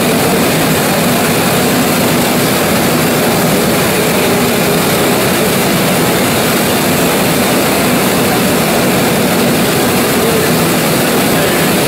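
1925 Gardner 4T5 four-cylinder oil engine running steadily at a loud, even level.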